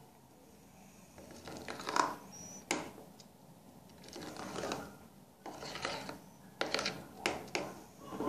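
Spoon stirring thick cake batter in a glass bowl: uneven scraping and squelching strokes, with a few sharp clinks of the spoon against the glass.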